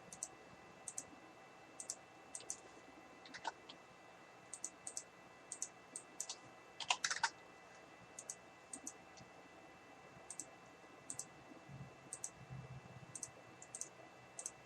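Scattered computer mouse clicks and keyboard taps, short sharp clicks a second or so apart, with a louder cluster of clicks about halfway through.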